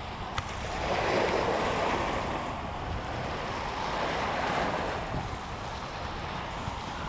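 Choppy waves breaking and washing against rocks, with wind buffeting the microphone; the surf swells louder about a second in and again around four seconds in.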